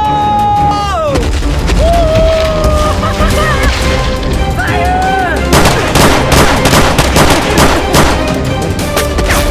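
Action-film soundtrack: music under a long held high cry that drops away about a second in, then from about halfway a rapid, irregular string of sharp bangs and crashes.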